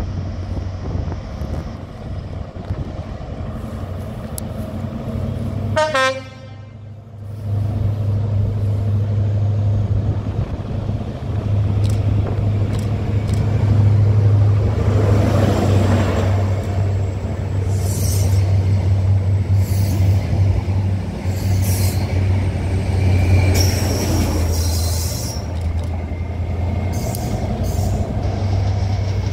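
Diesel engines of Class 43 HST power cars running with a steady low drone as the train departs, with short hissing bursts in the second half.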